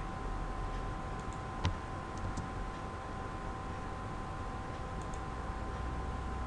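One sharp computer click, from a mouse button or key, about one and a half seconds in, followed by a few much fainter ticks, over steady background hiss and a faint steady tone.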